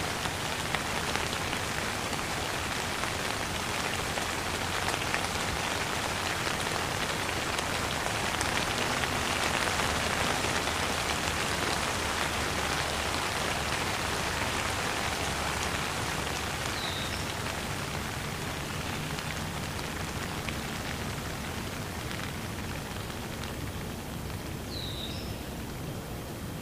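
Steady rainfall, a dense even hiss of many drops, growing a little softer over the last several seconds.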